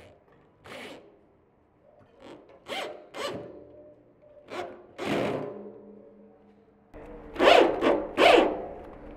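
Electric drill driving screws through a caster wheel's steel mounting plate into a wooden board, run in short rasping bursts. The bursts come singly at first and grow louder and closer together over the last couple of seconds.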